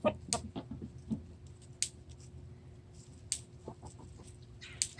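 Chickens clucking softly in short, scattered calls, with a few sharp clicks about every second and a half.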